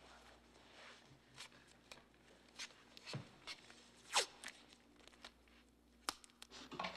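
Scattered light clicks, knocks and rustles of quiet movement, with one louder brief swishing sound about four seconds in.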